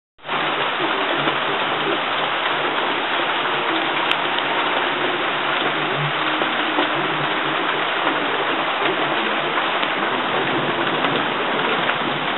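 Steady rain falling, an even wash of noise that cuts in suddenly just after the start and holds level throughout.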